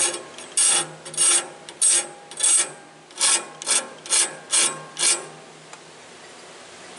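Hand file rasping across the steel teeth of a Wood-Mizer sawmill band blade, sharpening the points: about ten short strokes, roughly two a second, stopping a little after five seconds.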